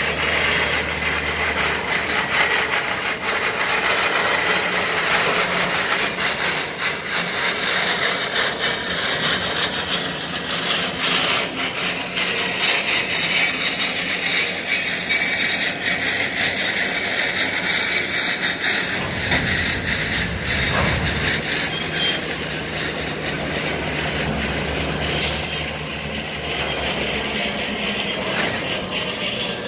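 Freight cars of a Canadian National train rolling slowly past, steel wheels scraping and clicking on the rails. From about two-thirds of the way in, a low diesel locomotive rumble grows stronger as the locomotives draw near.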